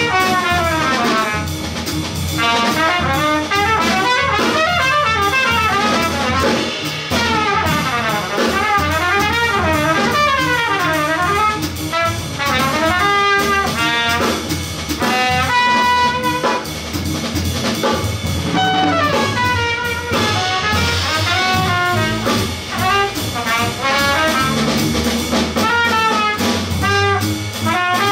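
Chordless jazz trio of trumpet, double bass and drum kit playing live. The trumpet leads with fast runs of notes that rise and fall.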